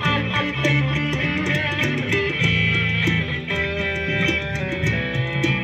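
Live band playing amplified music: electric guitar and bass over a steady beat of sharp percussive ticks.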